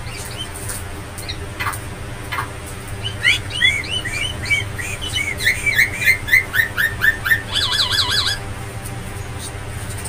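Javan myna singing: a few single calls, then a quick run of a dozen or so chirping notes, ending in a fast looping warble that cuts off suddenly. A steady low hum runs underneath.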